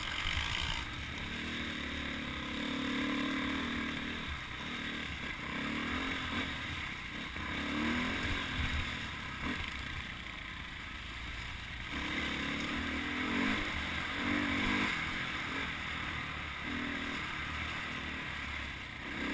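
Dirt bike engine heard from the rider's helmet camera while riding a forest trail, the engine note rising and falling every second or two as the throttle is opened and closed.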